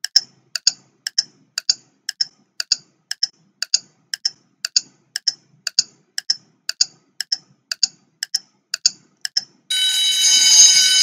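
Quiz countdown-timer sound effect: a clock ticking about twice a second, then an alarm ringing near the end as the timer reaches zero.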